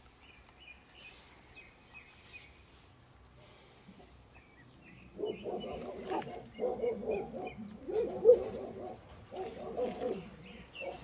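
Faint high bird chirping, then from about five seconds in a run of loud, low animal calls repeating about once a second.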